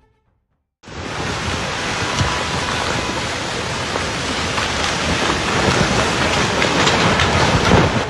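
Loud, steady rushing noise that cuts in suddenly about a second in.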